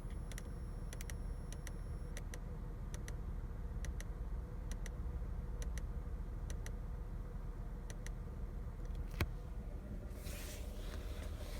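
Small car idling with a thin steady whine over the engine, the brake whine that a faulty hose near the brake booster causes in these cars. Scattered light ticks, a sharp click a little after nine seconds, then a short hiss.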